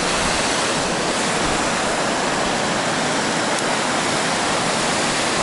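Water rushing steadily over a reservoir spillway weir, a continuous even roar of falling, churning water.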